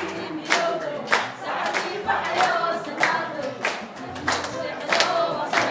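A group of people singing together and clapping a steady beat, a little under two claps a second.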